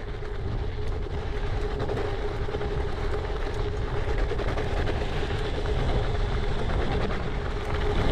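Gravel bike rolling over rough, loose ground: steady tyre rumble from 43 mm Panaracer Gravel King SK tyres with Vittoria Air Liner inserts, mixed with constant rattling and clicking from the bike, and a steady hum underneath.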